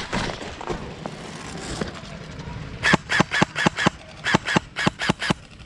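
Scuffling movement, then an airsoft rifle fired in two quick strings of about six sharp shots each, roughly six a second, with a short pause between.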